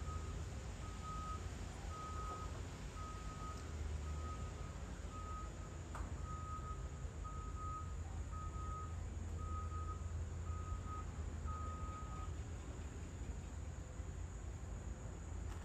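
A vehicle's reversing alarm beeping at one steady pitch, about one beep a second, stopping about twelve seconds in, over a low steady rumble.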